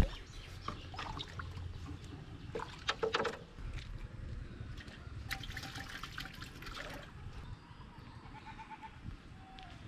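Hooked magur (walking catfish) thrashing at the water's surface on a hand line: short bursts of splashing and dripping water, with the loudest splashes about three seconds in and again around five to seven seconds in, then quieter as it is lifted out.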